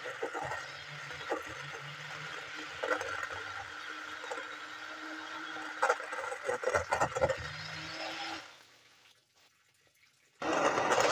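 Immersion (stick) blender running in a stainless-steel bowl of soaked jameed and water: a steady motor hum with liquid churning and splashing and occasional clicks of the blade head against the bowl. Near the end the sound drops away for about two seconds, then returns louder.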